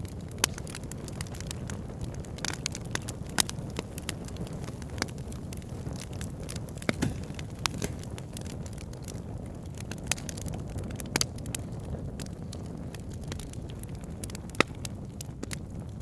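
Wood fire burning: a steady low rumble of flames with sharp, irregular crackles and pops of burning wood, a few much louder snaps among them.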